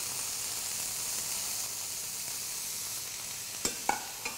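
Green asparagus cooking in a non-stick frying pan with olive oil and a splash of white chicken stock, sizzling with a steady hiss: they are cooked in only a little liquid so they do not colour. A few light clicks come near the end.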